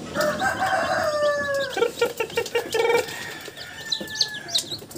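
A rooster crowing: one long call that falls in pitch over the first two seconds, then a quick run of clucks. A few high peeps from newly hatched chicks come about four seconds in.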